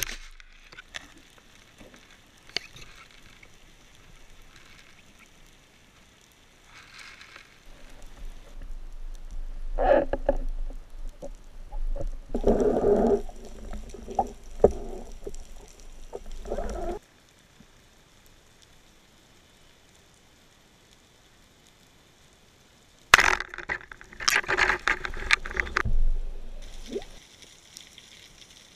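Water noise on an underwater camera: a sharp click at the very start, then quiet hiss, broken twice by long stretches of irregular splashing and sloshing with a low rumble as the diver works at the surface with a speared fish.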